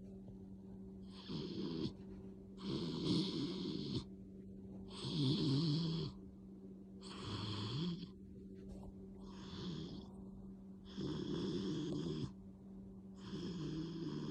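Dog snoring loudly in a slow, even rhythm: seven snores, one about every two seconds.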